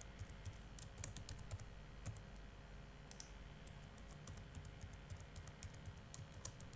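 Faint typing on a computer keyboard: a scatter of irregular keystroke clicks.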